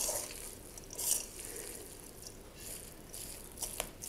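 Bare hands kneading and squeezing a wet minced-beef and parsley stuffing in a stainless steel bowl: faint squelching in short bursts, with a couple of sharp clicks against the bowl near the end.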